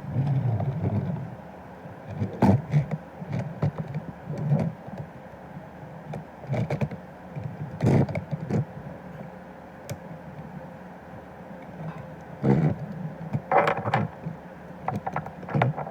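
A transforming toy crane truck being handled: irregular clicks and knocks of its parts, with rubbing and thumps in between and a few louder knocks.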